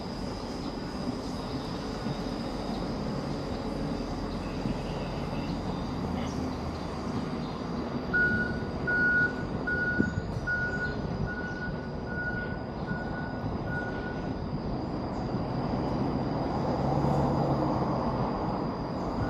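Steady city traffic hum. About eight seconds in, a run of short, evenly spaced electronic beeps starts, roughly one and a half a second, and stops after about six seconds. A thin, steady high whine sits over everything.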